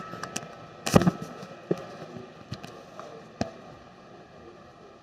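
Handling noise on a repair bench: several sharp clicks and knocks of small parts being moved, the loudest a quick cluster about a second in, then a few single ones over the next couple of seconds before it goes quiet.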